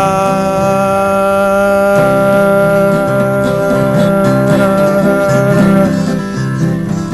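Acoustic bluegrass music: a guitar strummed with alternating bass notes under one long held note that fades about six seconds in.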